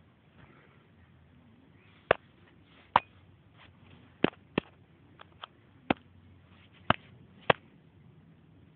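Katydid making sharp single clicks at irregular intervals, about eight loud ones with a few fainter ones between, over a faint low hiss.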